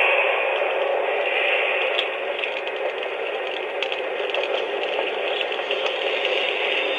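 Spooky Dementor sound effect from the Lionel Hogwarts Express add-on Dementor's car, played through its small onboard speaker: a steady, raspy, rattling hiss with a few faint clicks.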